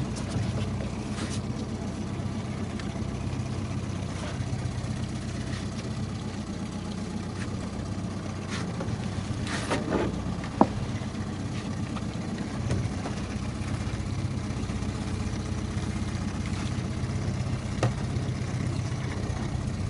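A boat motor running steadily at slow trolling speed, a low even hum, with a few short clicks and knocks over it.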